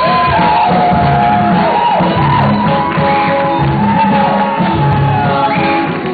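Loud praise music with many voices singing and shouting together over a steady beat.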